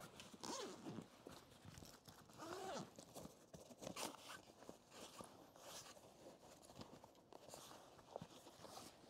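Near silence with faint rustling, small clicks and footstep-like sounds of someone moving about and handling things.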